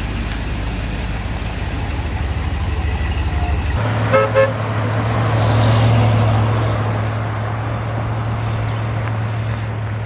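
A 1990 Dodge Ram van's engine idling, then two short horn toots as the van drives past, its engine and tyre noise swelling and fading away.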